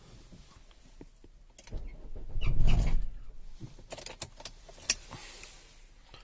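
Starter motor of a Nissan X-Trail 2.0 dCi diesel briefly cranking the engine for about a second, without it catching: the engine won't start. A few sharp clicks follow.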